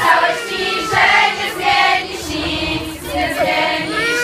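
A crowd of girls singing together in a loose chorus, a birthday song for the singer.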